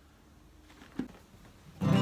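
Acoustic guitar: one soft plucked note about a second in, then a strummed chord that starts just before the end and rings on, opening the song's introduction.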